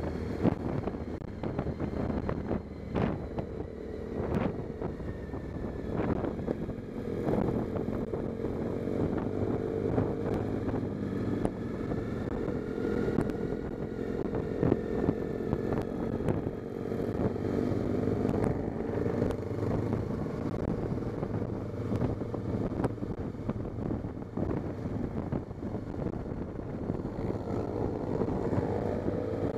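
Motorcycle engine running at road speed, its pitch rising and falling gently with the throttle, with wind noise on the microphone and a few short knocks.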